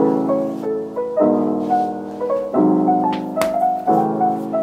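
Background piano music: soft chords changing every second or so, with a simple melody over them.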